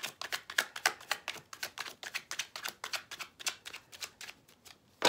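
Deck of oracle cards being overhand-shuffled by hand: a fast run of light card slaps and flicks, thinning out near the end, closing with one sharper tap of the cards.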